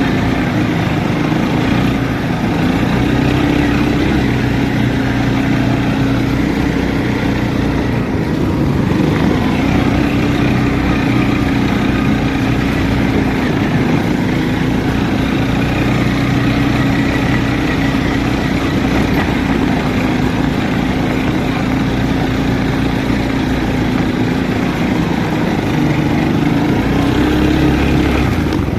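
Linhai 300cc ATV engine running steadily, its pitch rising and falling slightly with the throttle.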